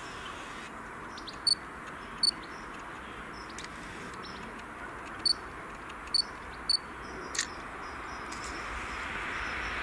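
A bird giving five short, sharp chirps over the steady rush of a distant train approaching along the line, whose noise grows louder near the end.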